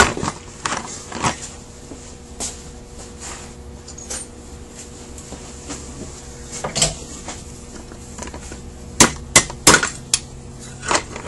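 Scattered metal clicks and knocks of carburetor parts and a tool being handled on a workbench, with a quick run of four or five sharp taps about nine seconds in and one more near the end.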